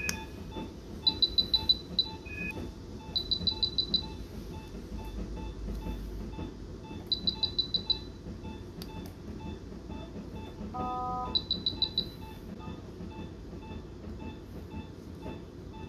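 Veterinary anaesthesia monitor beeping: a faint pulse tone about twice a second, broken four times by a burst of rapid high-pitched alarm beeps, and once, about eleven seconds in, by a lower single beep.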